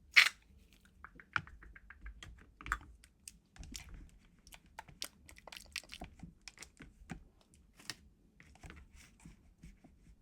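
Light, irregular clicking and tapping, with a sharper crackle just at the start and a quick even run of ticks about a second in.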